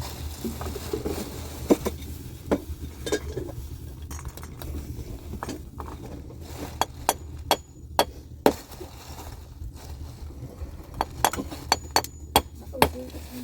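Sharp clinks and knocks of glass and crockery as tea things and a sugar bowl are handled, about fifteen separate strikes at uneven intervals, over a steady low hum.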